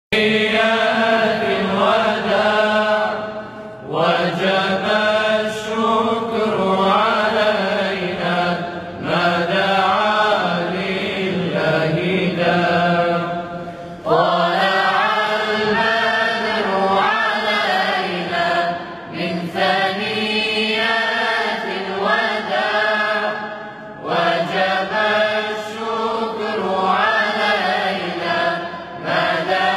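Unaccompanied male voices chanting a devotional song together, in long melodic phrases of about five seconds each with short breaths between, over a held low note.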